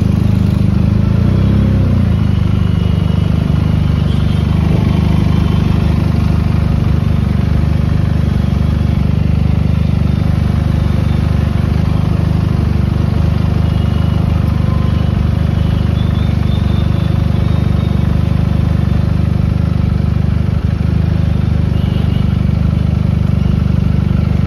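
Benelli motorcycle's engine idling and running at low revs, a steady low drone amid scooter and car traffic.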